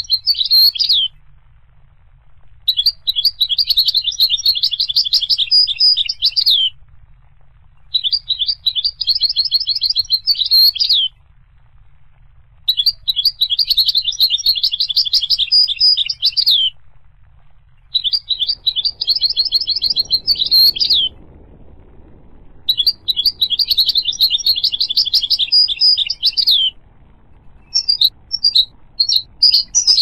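European goldfinch singing: phrases of rapid, high twittering notes, each three to four seconds long, repeated with pauses of about a second between them.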